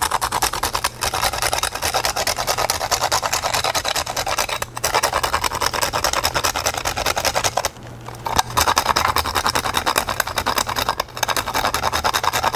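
Cinnamon stick grated on a fine handheld grater: rapid rasping strokes, broken by a few short pauses.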